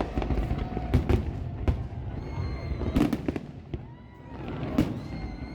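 Aerial fireworks bursting: a string of sharp bangs, the strongest about a second in and at three seconds, with faint whistling glides between them.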